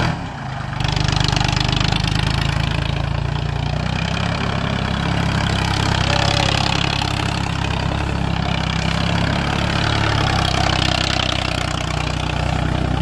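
Ford 3600 tractor's three-cylinder diesel engine running steadily through a loud aftermarket exhaust as the tractor moves slowly, stepping up a little about a second in and then holding an even note.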